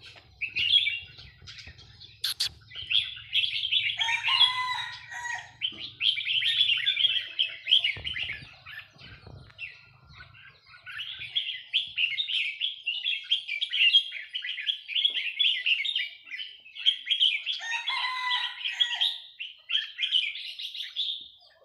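Caged red-whiskered bulbuls of a Burmese strain singing, a quick run of chirping, warbling phrases with a brief pause about ten seconds in. A lower, drawn-out call cuts in twice, about four seconds in and again near eighteen seconds.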